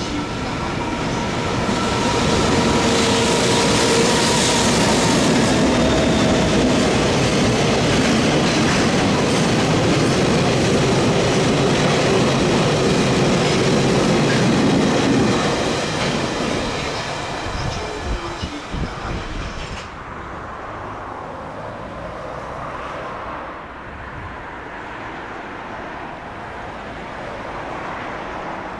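Freight train of tank wagons behind EF210 and EH200 electric locomotives rolling past at close range, steel wheels clattering over the rail joints. The sound is loud for the first half, then fades. About two-thirds through, it gives way to a quieter, duller rumble of another freight train.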